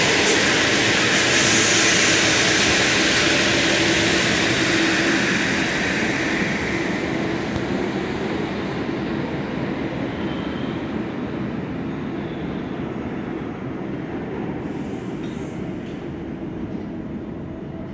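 R62A subway train pulling out of the station and receding into the tunnel: the rush of its wheels and motors is loud as the cars roll past, then fades steadily as the rear end goes by and the train draws away. Faint wheel squeals come through in the second half.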